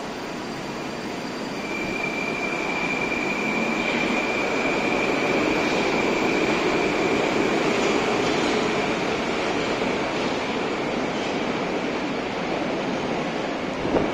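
Moscow metro train pulling out of the station: the rumble of wheels and motors builds, then fades as it runs into the tunnel, with a steady high whine through the middle. A brief knock near the end.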